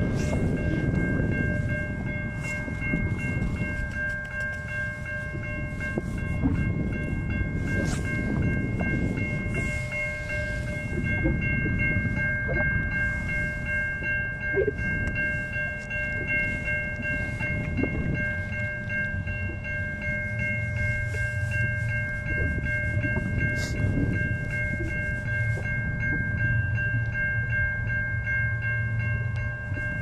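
Railroad crossing's mechanical bell ringing steadily, with wind buffeting the microphone. A low steady hum joins about two-thirds of the way in.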